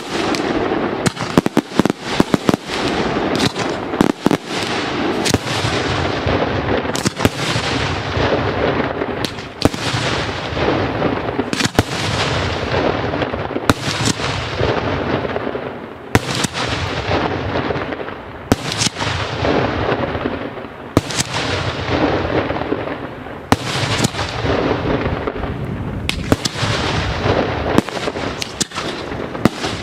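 Daytime fireworks: aerial shells bursting with loud bangs, each trailing off in a long rolling echo. A quick cluster of cracks comes near the start, then the bangs settle to roughly one a second.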